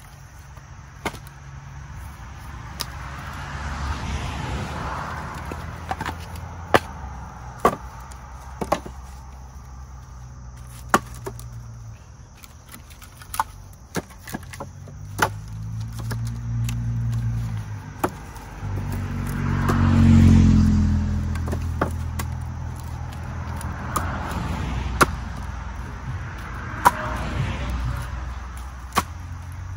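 Split firewood knocking and clacking as pieces are picked from a stack and set by hand into a wooden bundling frame, in irregular sharp knocks. Under it a motor vehicle's low rumble builds to a peak about two-thirds of the way through as it passes.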